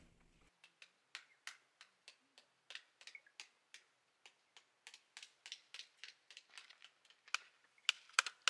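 Halved pomegranates being beaten with a plastic stick to knock the arils out: a run of sharp taps, about two or three a second, faint at first and getting louder and quicker near the end.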